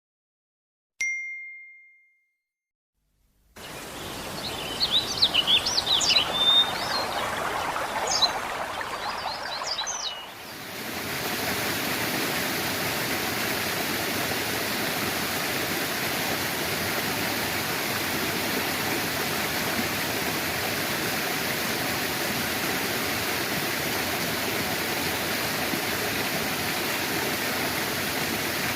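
A single ding about a second in, then birds chirping over running water. From about ten seconds on, a steady rush of water pouring from a pond's outflow channel.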